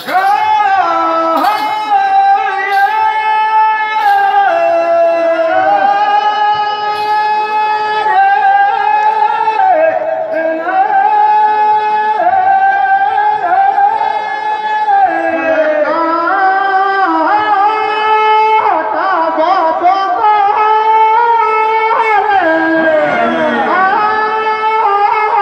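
Teja gayan, Rajasthani devotional folk singing: a singer holds high, long-drawn notes for several seconds each, sliding slowly from one pitch to the next, amplified through a microphone. A few sharp strikes sound in the first few seconds.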